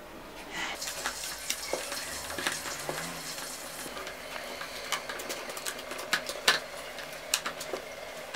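Thick bugali (ugali) being stirred and pressed with a wooden stirring stick in a metal pot: irregular knocks and scrapes of the stick against the pot over a light hiss.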